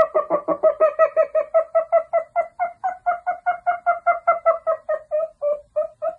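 Outro sound track: a rapid, even run of short notes all on one pitch, about five a second, slowing slightly and stopping near the end.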